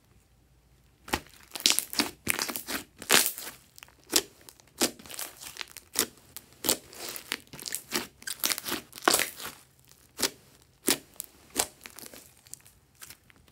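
Thick glossy slime being squeezed, pressed and stretched by hand, giving quick irregular sticky crackles and clicks. The first second is quiet before the handling sounds begin.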